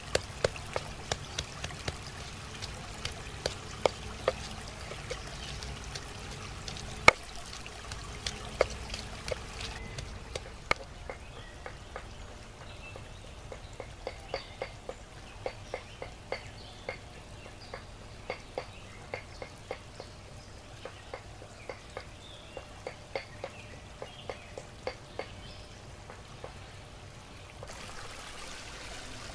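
Wooden pestle pounding garlic and chilli in a stone mortar: a run of uneven knocks, one much louder about seven seconds in. From about ten seconds in the knocking turns lighter and more even, about two a second.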